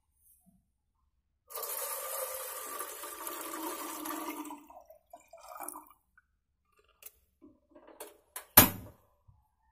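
Water poured from a plastic bottle into an empty aluminium pot: a steady splashing pour for about three seconds, then a few drips and small knocks, and one sharp knock near the end.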